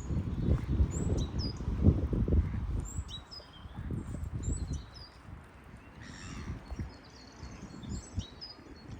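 Songbirds chirping and calling in short, high notes, some sliding in pitch, over a louder, irregular low rumble with dull thumps. The rumble is strongest in the first three seconds and fades to a lower level after about five seconds.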